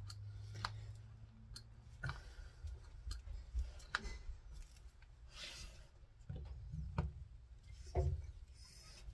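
Faint, scattered clicks and rubbing as a torque screwdriver turns a small Allen screw into a pistol's front sight.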